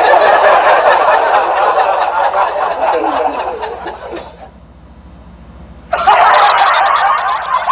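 Laughter: a loud stretch of chuckling and snickering that fades out about four seconds in, then starts again suddenly near the end.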